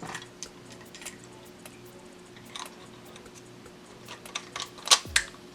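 Light clicks and taps of the plastic parts of a Nerf blaster being handled during disassembly, with a cluster of sharper clacks and knocks near the end.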